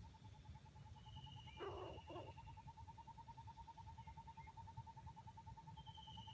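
Faint woodland animal calls: a steady, rapidly pulsing call runs throughout, a long thin high whistle comes twice, and a short two-part harsh rasp sounds about a second and a half in.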